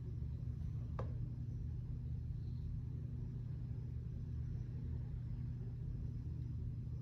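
Steady low hum of a running ceiling fan, with a single short click about a second in.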